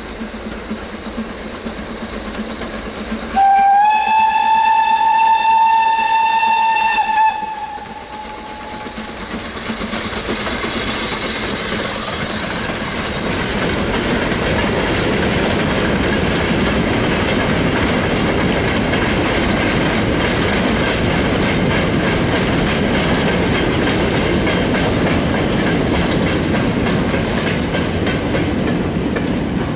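Steam locomotive whistle: one long single-note blast of about four seconds that steps up slightly in pitch as it starts. Then the locomotive passes with a hiss of steam, and a long train of loose-coupled mineral wagons rolls steadily by.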